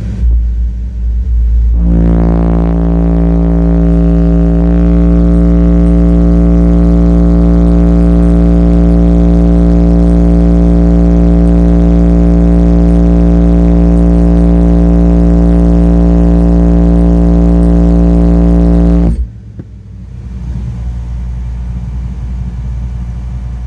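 Eight Skar Audio ZVX 8-inch subwoofers on a Taramp 12k amplifier playing a steady bass test tone of about 58 Hz at very high level inside the vehicle's cabin, buzzy with overtones. It comes in about two seconds in, holds for about seventeen seconds and cuts off sharply, leaving a low rumble.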